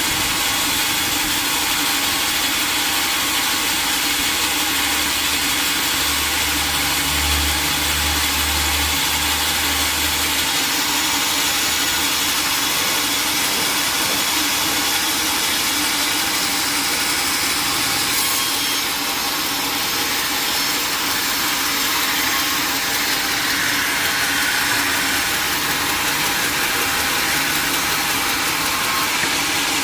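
Sawmill machinery running with a steady, loud mechanical noise; a deeper hum joins in for a few seconds about a fifth of the way in.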